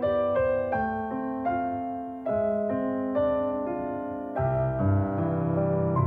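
Background piano music: a gentle melody of single notes over held chords, with deeper bass notes coming in about two-thirds of the way through.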